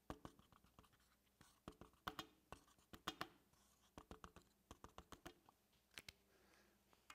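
Faint clicking of keys being typed on a MacBook laptop keyboard, in irregular runs, with a few louder taps about two, three and six seconds in.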